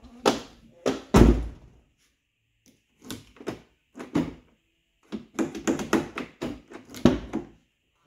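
Ford F-150 exterior door handle and door latch being pulled and worked over and over, testing a newly fitted keypad door handle. There are a few heavy clunks near the start, then a string of sharper clicks and clacks from the handle and latch mechanism.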